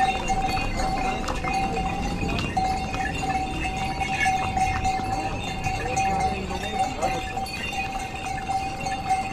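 Pony hooves clopping on a stone trail, with a steady high ringing tone throughout and faint voices.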